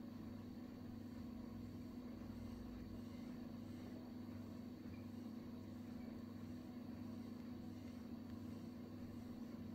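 Faint, steady background hum with a low drone and a thin high whine, unchanging throughout, with no distinct sounds from the work.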